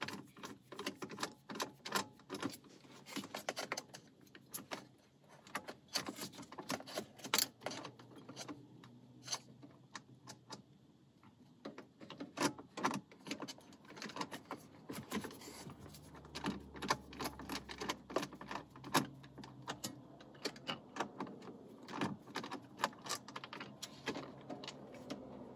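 Hand ratchet clicking in quick, irregular runs while loosening the 10 mm bolts that hold a car's factory radio in the dash, with light metallic taps. The clicking thins out briefly partway through, then picks up again.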